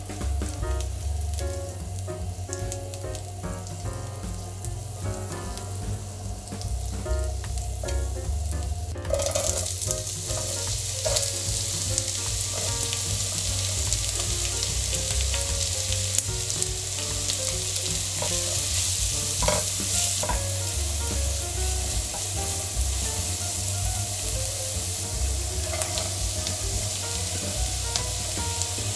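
Soft background music, then food in a hot frying pan starts sizzling abruptly about nine seconds in and keeps sizzling steadily, with a few clicks over it.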